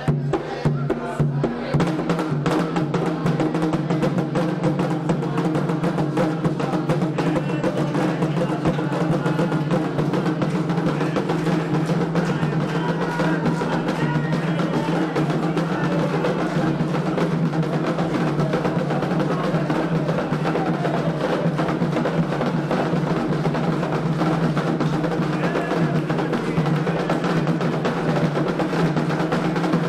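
Candomblé atabaque drums playing a fast, dense, unbroken ritual rhythm for Xangô, with a sharp clacking percussion part over the drums.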